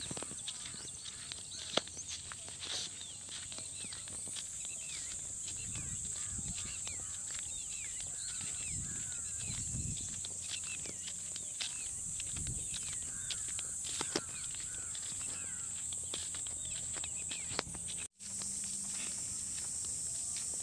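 Outdoor field ambience: a steady high-pitched insect drone with many short bird chirps over it for the first half, and scattered light clicks and footsteps from handling the phone while walking. The sound drops out for an instant near the end.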